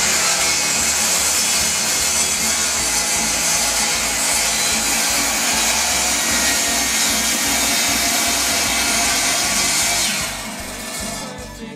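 Power chop saw (miter saw) cutting into an aspen burl log: a loud, steady cutting noise that dies away about ten seconds in.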